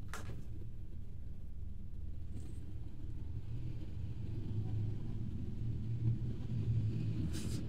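Steady low rumble, with a short sharp click just after the start and another near the end as two smartphones are handled against each other.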